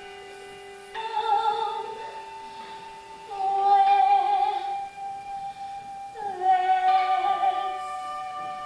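Live stage-musical song: a high female voice sings three long held phrases with vibrato, entering about a second in, near the middle and again later, over sustained keyboard chords.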